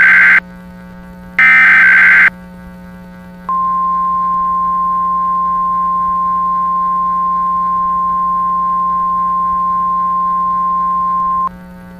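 Emergency Alert System SAME header: the last two of three short, rasping digital data bursts about a second apart, then after a pause a steady single-pitch 1050 Hz NOAA Weather Radio alert tone held for about eight seconds, cutting off sharply near the end. A low steady hum runs underneath throughout. This is the header and alert tone that open a new weather warning broadcast.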